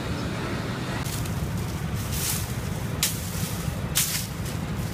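City street ambience: a steady low rumble of traffic with wind buffeting the phone's microphone, broken by several short hissing rustles in the middle.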